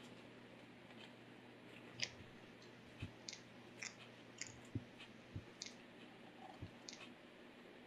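Leopard gecko chewing a cricket: about ten faint, irregular crunching clicks.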